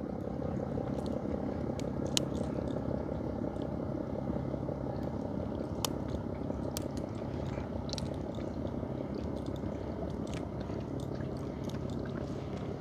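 Small boat engine running steadily at low speed, with scattered light clicks and taps.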